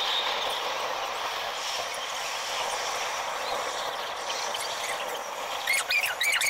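Steady running noise inside a Lahore Orange Line metro car moving along its track. A faint high squeal fades out in the first second, and a few short chirping squeaks come near the end.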